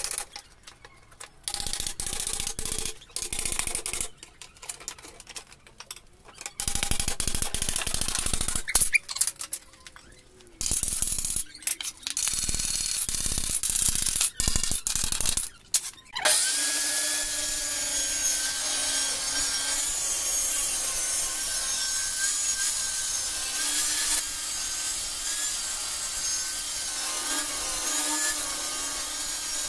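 Short, choppy bursts of knocking and hammering on wood as an old wooden bed slat frame is taken apart with a hammer. From about halfway, a table saw runs steadily while it rips a wooden bed slat lengthwise.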